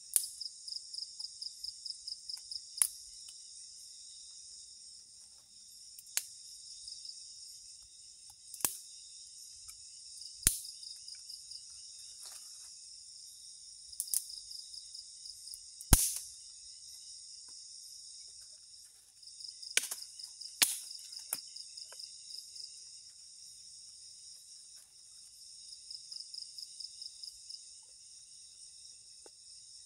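Night chorus of crickets and other insects, a steady high trilling with stretches of rapid pulsing calls at about four or five pulses a second. About nine sharp cracks of dry sticks being handled and snapped break through it; the loudest comes about halfway through.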